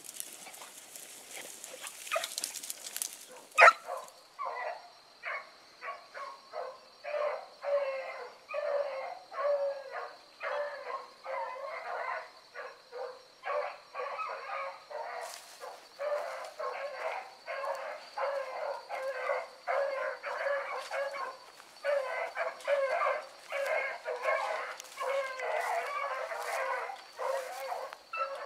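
Pack of beagles baying on a freshly jumped rabbit, a steady run of overlapping bawls about one to two a second that begins a few seconds in, after some rustling and a sharp click.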